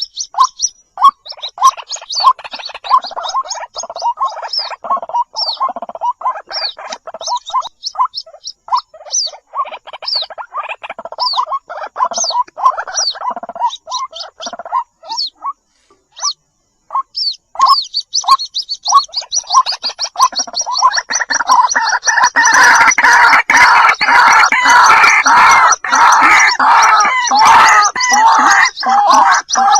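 White-breasted waterhen calling: a series of short, repeated call notes. About two-thirds through they give way to a louder, dense chorus of overlapping gurgling calls.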